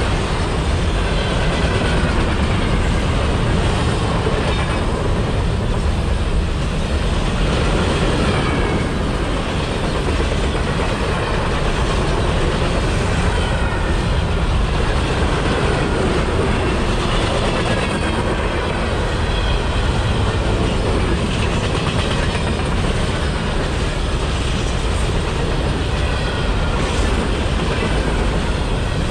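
Freight train rolling steadily past, with the continuous noise of its cars going by on the rails.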